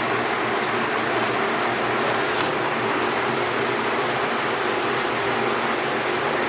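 Chicken deep-frying in hot oil: a steady, even sizzle.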